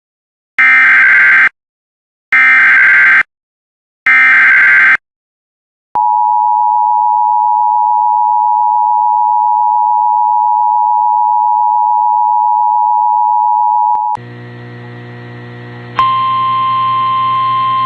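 Emergency Alert System warning: three one-second bursts of the digital SAME header, then the two-tone attention signal held steady for about eight seconds. It gives way to a quieter hum, which a single steady tone joins about two seconds later.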